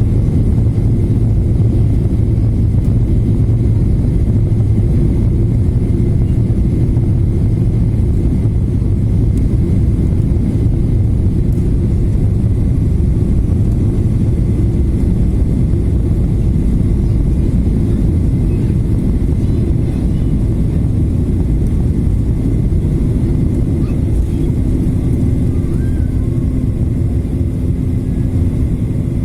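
Boeing 737-800 cabin during take-off: the CFM56 jet engines and rushing air make a loud, steady low rumble. A steady low hum comes in about two-thirds of the way through.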